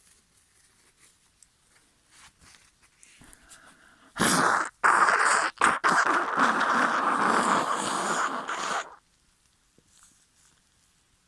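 A person blowing their nose hard: after faint sniffly breaths, a short loud blast about four seconds in, then a longer blow with brief breaks that lasts about four seconds and stops suddenly.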